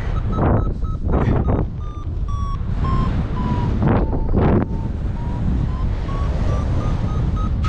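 Paragliding variometer beeping, about three or four short beeps a second. The pitch sinks through the middle and climbs again toward the end, the sign of the climb rate in a thermal weakening and then picking up. Wind rushes on the microphone, with gusts about half a second in, around a second in and around four seconds in.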